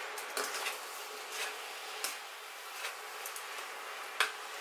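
Metal tongs tossing chicken and cauliflower rice in a stainless steel skillet, clicking against the pan half a dozen times, the sharpest about four seconds in, over a steady sizzle.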